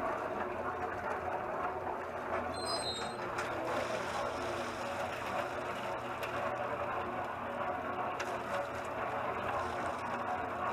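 Homemade cement mixer built from a 55-gallon steel drum, running: its electric motor and belt-and-pulley drive turning the drum with a steady hum. A short high squeak sounds about two and a half seconds in.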